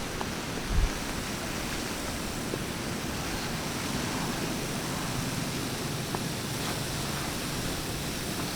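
Steady hiss of rain and wind, with one brief low thump about a second in.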